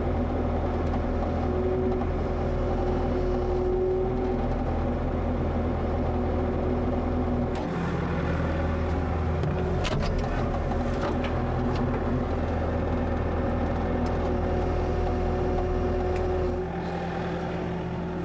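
Bobcat E55 mini excavator's diesel engine running steadily with a hydraulic whine as the machine works its quick coupler onto the brush cutter. The tone shifts about eight seconds in, a few clicks sound around ten seconds, and the engine note drops near the end.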